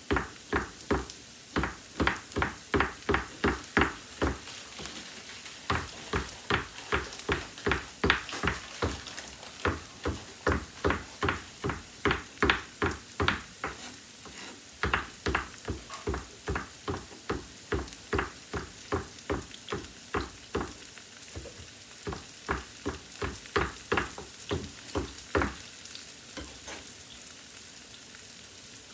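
Knife chopping garlic on a cutting board in quick, even strokes, about three a second, with a short pause early on; the chopping stops near the end. Mushrooms sizzle in the frying pan underneath.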